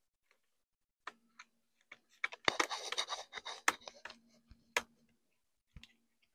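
Laptop plastic housing clicking and scraping as it is handled during reassembly: scattered sharp clicks and a scratchy rustle lasting about a second, near the middle.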